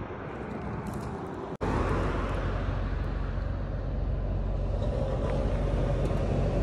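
Steady roadside vehicle noise, a low engine-like rumble with hiss. About one and a half seconds in it cuts out for an instant and comes back louder, with a stronger low rumble.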